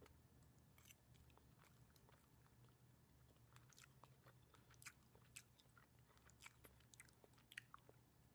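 Faint chewing of a mouthful of cooked cauliflower rice: soft, irregular mouth and teeth clicks, more frequent in the second half, over a low steady room hum.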